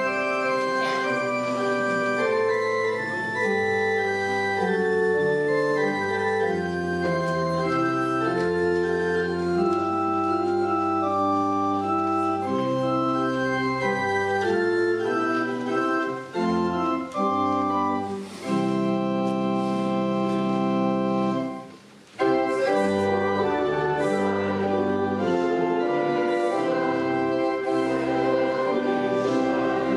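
Church organ playing held chords with a moving melody, as the introduction to a congregational hymn; it breaks off briefly about two thirds of the way through, then carries on.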